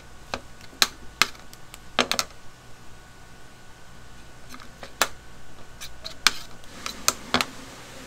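Irregular sharp taps and clicks, about ten, of a flat metal spatula against the filling plate as dumpling filling is scooped onto wrappers and the dumplings are folded by hand, over a faint steady hum.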